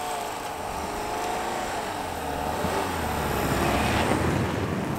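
Volkswagen Tiguan's engine revving as it ploughs through deep snow, with tyres churning the snow. It grows louder as the car nears and passes close by, loudest about four seconds in.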